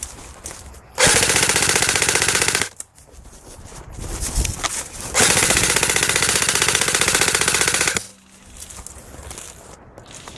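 Airsoft gun firing on full auto in two long bursts of rapid clicking shots, the first about a second and a half long and the second, about five seconds in, nearly three seconds long.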